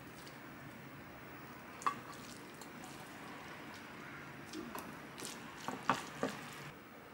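Metal tongs clicking against a pot while sticky sauced noodles are lifted and dropped into a dish, with wet squishing. A single sharp clink about two seconds in, then a quick run of clinks near the end.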